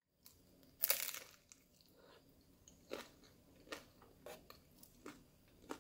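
A crisp fried corn-tortilla flauta bitten with one loud crunch about a second in, followed by several softer chewing crunches.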